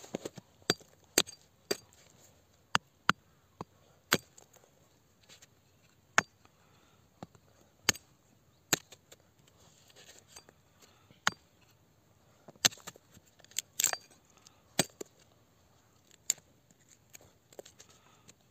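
Small hatchet chopping thin branches into kindling: a string of sharp, irregular knocks of the blade striking wood, roughly one a second.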